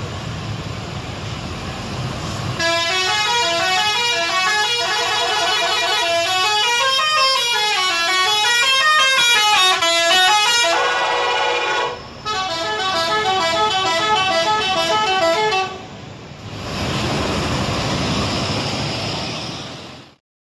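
Multi-tone 'telolet' bus air horn playing a rapid melody of short notes that step up and down, in two runs of several seconds each. Vehicle rumble comes before the horn and after it, and the sound cuts off abruptly near the end.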